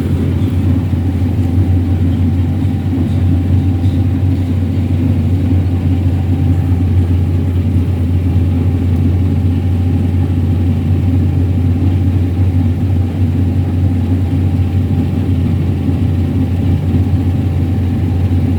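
Claas Lexion 8900 combine harvester running steadily while harvesting wheat: a loud, even low drone with a faint steady whine above it.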